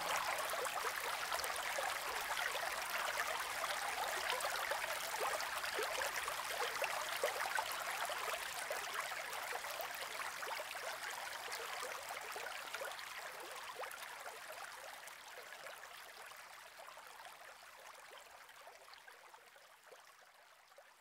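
Running water, like a brook trickling and splashing, as a steady hiss that fades out gradually until almost nothing is left.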